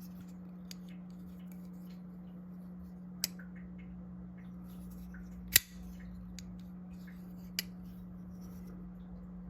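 Four short metallic clicks, the loudest a little past halfway, as a WE Knives Highfin folding knife is handled while its pivot is adjusted, over a steady low hum.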